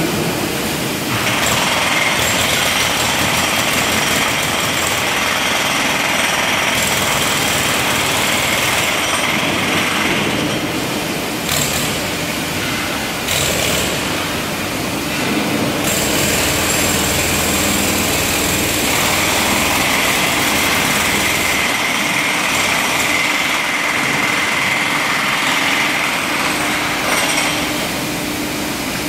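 Angle grinders cutting steel bar, a loud, steady high whine over dense grinding noise that carries on almost without a break.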